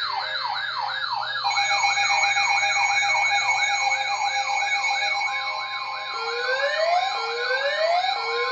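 Layered electronic sirens. A fast yelp sweeps down in pitch about three times a second, steady high alert tones join it about a second and a half in, and slower rising wails of about one a second come in near the end.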